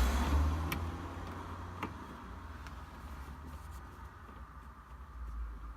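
Low rumble with two light clicks, about a second in and near two seconds: handling noise from screwing a car's dash trim panel back in place.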